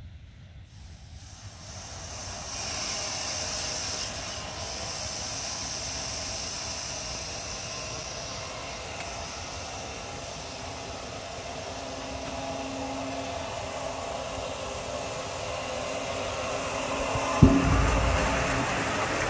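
Steady hiss of water rushing out through the opened hose and tank plumbing as the well's pressure tank drains. About 17 seconds in, a sudden clunk as the well pump kicks on at its cut-in pressure, then a low hum as the pump runs.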